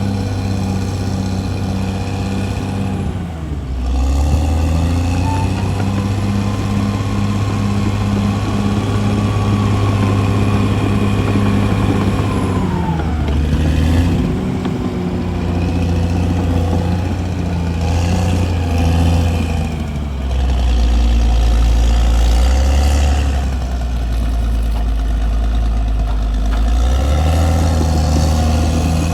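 CAT D6R bulldozer's diesel engine running hard, its note sagging and picking back up about four times as the load changes.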